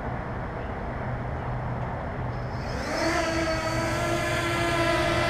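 Wind buffeting the microphone, then about three seconds in the Ehang Ghost Drone 1.0 quadcopter's motors spin up with a quick rising whine and settle into a steady hum of several pitches, idling on the ground just before takeoff.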